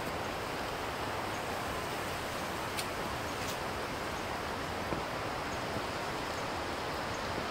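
Steady rustling hiss of wind moving through the forest trees, with a few faint ticks near the middle.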